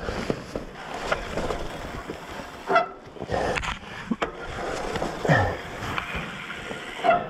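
Handling noise as a mountain biker moves around his bike on a muddy trail: clothing and leaves rustling, with scattered clicks and knocks and a few short louder sounds about three seconds in, after five seconds and near the end.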